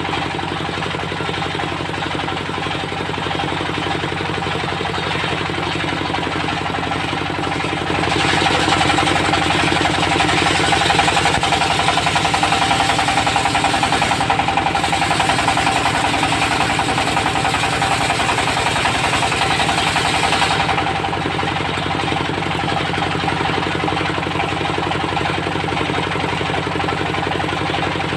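Engine-driven circular sawmill running steadily. From about 8 seconds in to about 21 seconds it gets louder and harsher, with a rasping hiss and a blade whine, as the blade cuts through teak. It then drops back to the plain running sound.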